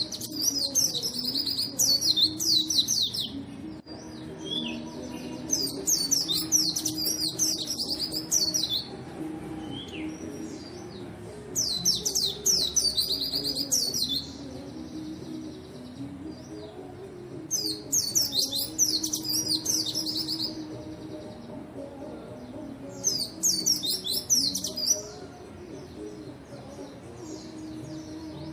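A white-eye (pleci) singing in bouts of rapid, high twittering song. Each bout lasts about two to three seconds, and five bouts come roughly every six seconds.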